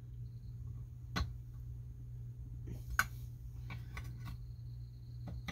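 A few sparse sharp clicks, the loudest about three seconds in, from a hand wrench tightening the muffler screws on a Stihl 028 chainsaw, over a steady low hum.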